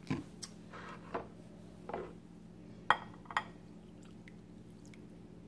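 A few light clinks and knocks of a glass measuring cup against dishes, the sharpest about three seconds in, then milk poured from the cup into a ceramic casserole dish of mashed sweet potatoes and sugar.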